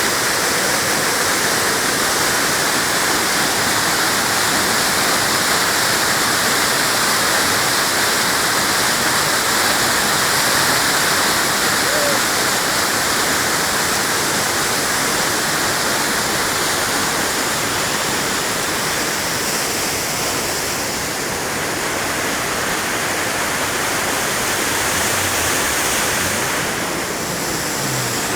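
Waterfall rushing steadily, its falling water making a continuous loud noise.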